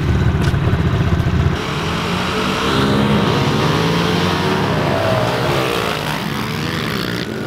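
A pack of 110cc four-stroke pit bikes running at the start line, then, about one and a half seconds in, revving up and pulling away together, several engine notes rising and overlapping as they accelerate and shift.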